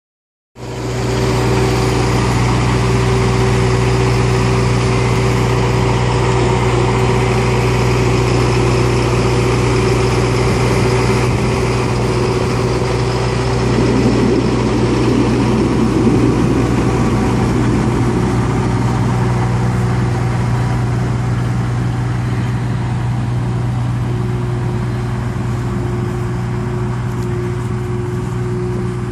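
Tractor engine running steadily as it pulls a dribble-bar slurry applicator fed by an umbilical hose. A rougher, noisier sound swells for a few seconds about halfway, as the applicator passes close, and the sound eases slightly near the end as the rig moves away.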